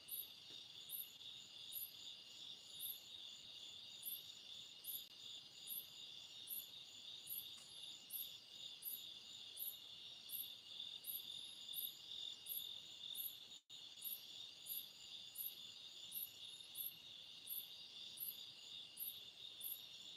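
Night insects chirping steadily: a continuous high trill with a high tick repeating at an even pace over it. The sound cuts out for a moment about thirteen seconds in.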